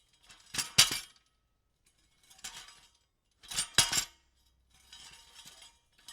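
Pieces of metal shuffled against one another, clinking and jangling in repeated short bouts. Louder bouts come about a second in and near the middle, each with a couple of sharp clinks; softer ones fall between them.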